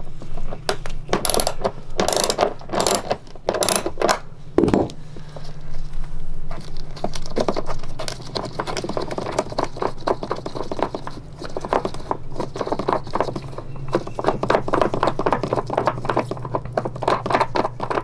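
Socket ratchet wrench clicking in quick runs as a toilet floor bolt is turned off, with a few knocks of metal and plastic being handled, over a steady low hum.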